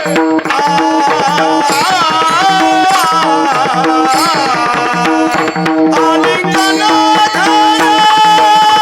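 Marathi devotional abhang singing in the Varkari kirtan style, with hand-drum accompaniment and a steady drone. The voice slides through ornamented turns and holds a long note near the end.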